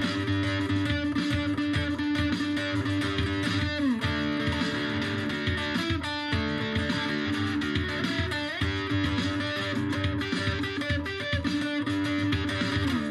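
Instrumental background music led by guitar, with held notes that now and then slide in pitch.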